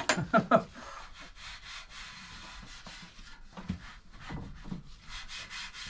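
Cloth rubbing over a motorcycle's stock exhaust silencer clamped in a vise, a steady scuffing hiss, then a few light knocks in the second half.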